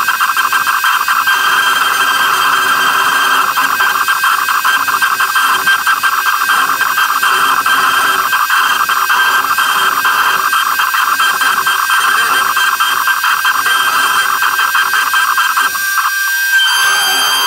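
A CNC router spindle runs at speed while its 60-degree V-bit carves red oak, a steady high whine over a fine crackle of cutting. Near the end the sound briefly breaks and changes, with a whine that glides up and down.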